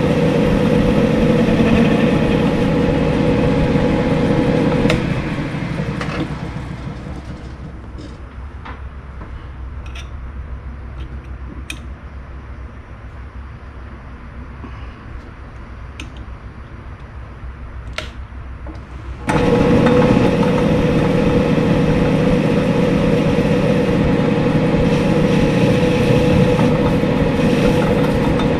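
Small metal lathe running with a steady hum, switched off about five seconds in and winding down. A few light metallic clicks follow, then the lathe motor is switched back on abruptly about nineteen seconds in and runs steadily.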